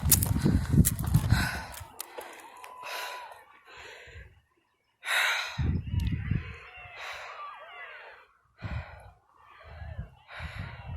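A person panting hard while hiking uphill, short heavy breaths about once a second, out of breath. Low rumbling on the microphone comes and goes between the breaths.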